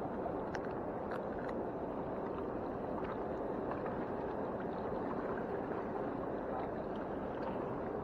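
Steady rushing of fast-flowing river water, with a few faint ticks.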